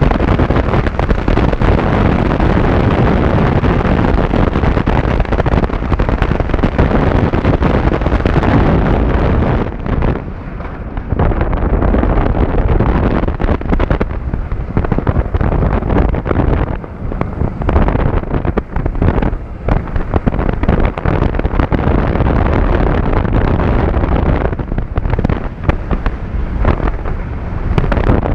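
Loud wind rushing over the microphone and the rumble of a roller coaster train running at speed. It eases off briefly about ten seconds in and dips several more times later.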